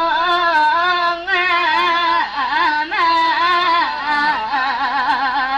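Limbu palam song sung without instruments for the dhan naach (paddy dance): a slow melody held in long, wavering notes with brief breaks between phrases.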